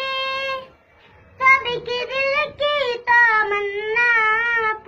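A young boy singing an Urdu devotional hymn (hamd) solo with no accompaniment, holding long notes that waver in pitch, with a short breath pause about a second in.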